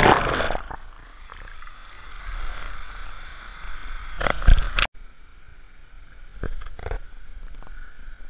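An action camera surfacing from underwater: a loud muffled underwater rush fades within the first second into the steady hiss of running water from a small waterfall and stream. A few brief splashes or knocks on the camera come through it about halfway and again later.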